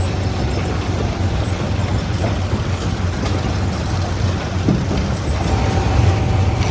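Stone crusher machinery running with a steady, heavy low rumble; a faint steady whine joins about five and a half seconds in.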